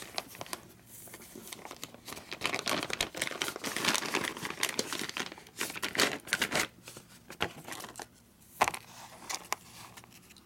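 Clear plastic bag and paper wrapping crinkling and rustling by hand as a part is unwrapped, on and off with a few sharper crackles.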